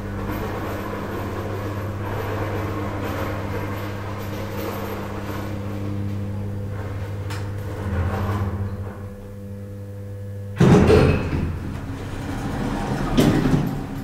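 KONE elevator arriving: a steady drive hum that dies away as the car slows and stops about eight to nine seconds in, then the stainless steel landing doors sliding open with a sudden loud clatter about ten and a half seconds in, followed by a few more knocks near the end.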